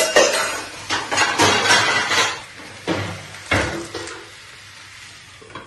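Metal pans and kitchen utensils clattering and scraping on a gas stove in several short bouts over about four seconds, then quieter.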